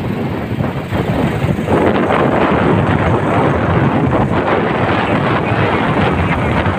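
Wind buffeting the microphone while riding a motorcycle, a loud steady rush with engine and road noise beneath it; it gets louder about two seconds in.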